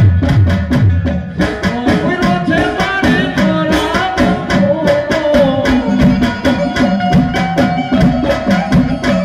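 Live Gujarati devotional folk music (dakla): dakla drums beaten in a fast, steady rhythm under a sustained keyboard melody, with a singing voice.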